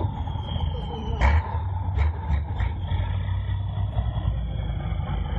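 Competition trial truck's diesel engine running hard under load, a steady low rumble, with a couple of sharp knocks about one and two seconds in.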